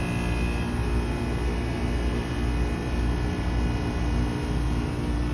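Trane XR13 heat pump outdoor unit running steadily in a defrost cycle: a constant low hum with steady tones over a low rumble.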